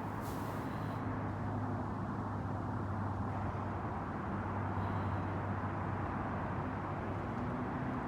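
Steady outdoor background of distant traffic and wind: an even rumble with a low, steady hum underneath.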